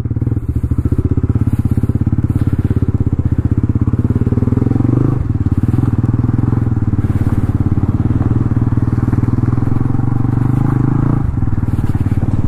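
A 200 cc single-cylinder motorcycle engine running steadily as the bike pulls away and rolls at low speed, heard from the rider's seat. Its note breaks briefly about five seconds in and again about eleven seconds in.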